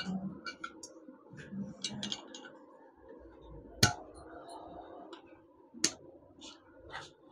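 Light clicks and taps of small metal parts being handled on a motorcycle engine crankcase during assembly, with two sharper clicks about four and six seconds in.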